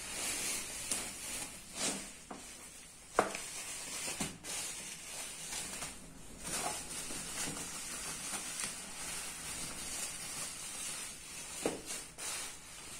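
Plastic packaging, bubble wrap and foam sheet, rustling and crinkling as it is handled and pulled open, with a few sharp crackles, the loudest about three seconds in.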